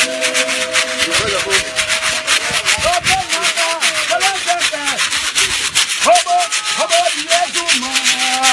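Choir of women singing, accompanied by a fast, steady beat of rasping shaken or scraped percussion.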